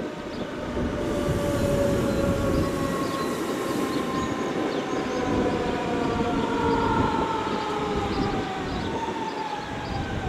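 Electric train running slowly through the station. Its traction motors whine in several tones that fall steadily in pitch as it slows, over the rumble of wheels on the rails.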